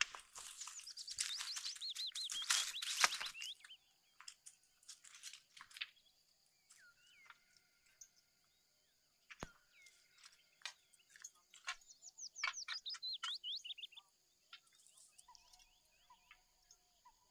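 Songbird singing outdoors: two rapid trills of falling chirps, one in the first few seconds and one about twelve seconds in, with softer calls between. Rustling in the first few seconds and scattered sharp clicks and taps run underneath.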